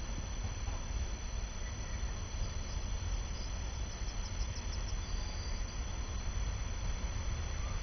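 Insects chirping in the grass, a short run of high rapid chirps about halfway through, over a steady low rumble.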